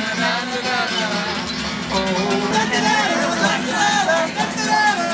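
Acoustic guitar strummed while a man sings.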